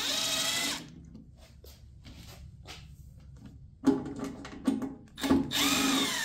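Milwaukee cordless impact driver backing out Phillips screws. The motor runs in a short burst at the start and again for about a second near the end, its pitch falling as it winds down, with a few clicks in between.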